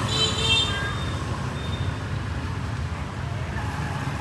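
Steady rumble of street traffic, with a brief high-pitched tone in the first second.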